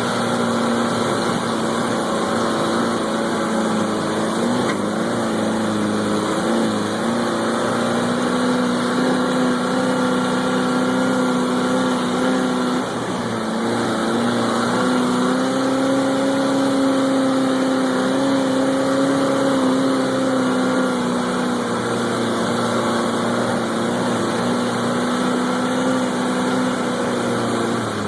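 Off-road vehicle's engine running steadily under way, its pitch drifting gently up and down with small changes of throttle, heard from the passenger's seat.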